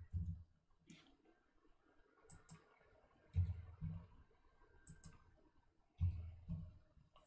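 Scattered computer keyboard keystrokes and mouse clicks, with a few dull low thumps, the loudest about three and a half and six seconds in.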